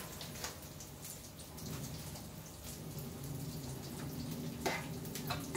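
Sambal sizzling in a wok on a gas burner, with a few light spoon taps, about half a second in and twice near the end, as sliced onion is scraped in from a plate.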